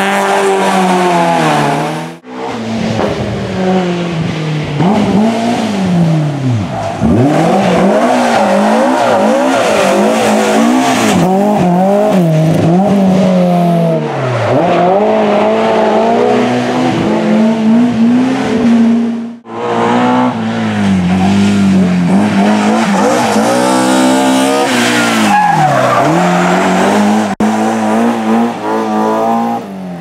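Rally cars, among them a BMW E30 M3, driven hard one after another past the roadside, engines revving up and falling back over and over through gear changes and braking. The sound breaks off and picks up with a new car about 2 seconds in and again about 19 seconds in.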